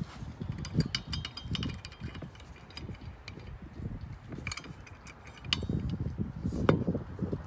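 Small metal clicks and clinks of a steel hitch pin and hairpin cotter clip being handled and fitted into a plastic cart bracket, with low rubbing and bumps of the hand-held camera being handled.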